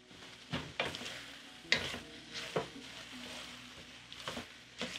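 Beef cubes sizzling in a tomato-and-spice base in a pot while a wooden spoon stirs them, with a few sharp scrapes and knocks of the spoon at uneven intervals.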